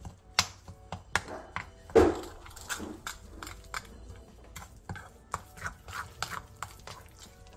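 Metal spoon stirring a thick chili-flake seasoning paste in a ceramic bowl, with irregular scrapes and clinks of the spoon against the bowl. The loudest scrape comes about two seconds in.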